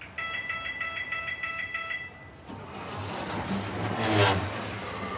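Lift's electronic beeper sounding about six short beeps, roughly three a second, followed by a rising rushing mechanical noise that peaks about four seconds in.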